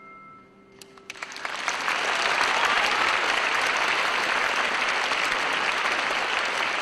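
Concert audience applauding: a few first claps about a second in, swelling within a second into full, steady applause as the last held notes of the music fade out.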